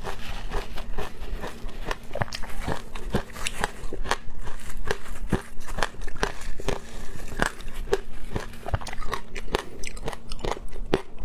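Close-miked crunching of shaved ice coated in passion fruit pulp being bitten and chewed: dense, irregular, crisp cracks several times a second.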